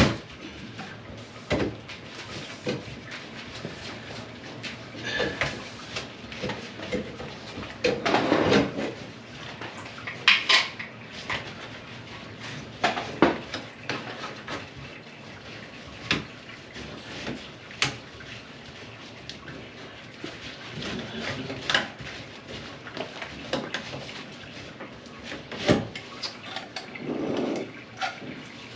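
Irregular clinks, clatter and knocks of hard objects being handled, spaced a few seconds apart, with louder clusters about eight and ten seconds in and again near the end.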